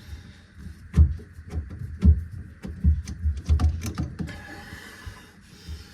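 Irregular knocks and clicks of a hand tool working the mounting screws on a garbage disposal's pressure plate under a sink, with louder thumps about one and two seconds in and a cluster of knocks around three seconds.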